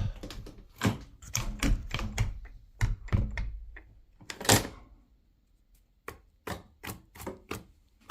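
Knocks and metallic clicks of a locked door latch and handle being tried and rattled, the loudest knock about four and a half seconds in, then a few lighter clicks near the end: the door will not open without a key.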